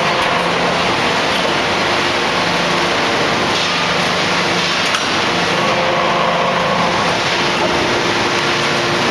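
4000-ton hydraulic forging press at work on a red-hot forging: a loud, steady rush of machine noise with a hydraulic hum that drops out and comes back several times. A single sharp click about five seconds in.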